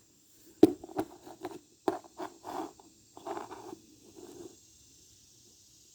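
Handling of small metal key fobs on leather straps: a few sharp clicks and clinks, then irregular scraping and rustling that stops about four and a half seconds in.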